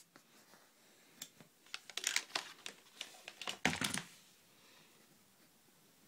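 Handling noise of a USB cable and a smartphone being moved about by hand: a cluster of small clicks, taps and rustles between about one and four seconds in, then quiet.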